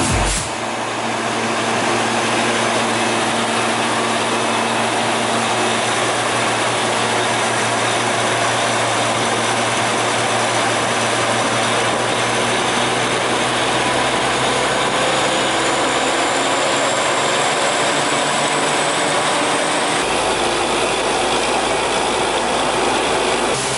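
Diesel engine and high-pressure air compressor of a truck-mounted borewell rig running steadily at high speed: a loud, even drone with a thin high whine that climbs slightly. The low end of the sound changes about 20 seconds in.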